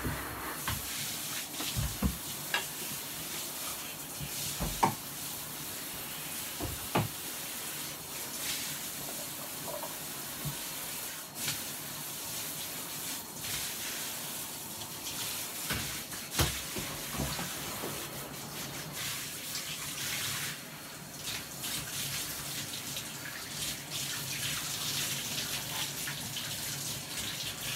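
Tap water running steadily into a bathroom sink or tub as someone rinses his hair, with a few short knocks along the way.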